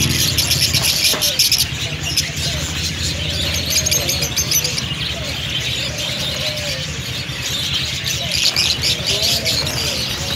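A crowded aviary of small cage birds chirping all at once, a dense, continuous high twittering, over a steady low hum.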